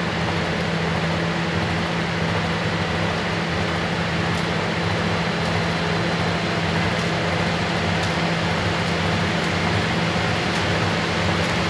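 Fisher & Paykel AquaSmart top-load washing machine in a spin, its basket turning at speed: a steady whooshing with a constant low hum.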